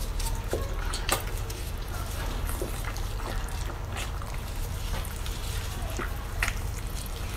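Close-up wet chewing and smacking of a mouthful of chili-coated octopus, with several short sharp smacks over a steady low hum.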